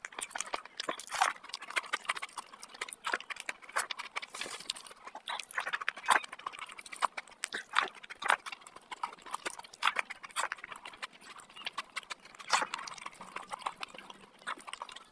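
Close-miked chewing of a mouthful of curry and rice, with irregular wet smacks and mouth clicks.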